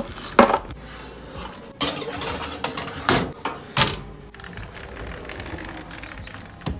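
Metal baking tray clattering as frozen cheese breads go onto it and it is put in the oven: a handful of sharp knocks in the first four seconds, the last of them from the oven door being opened and shut.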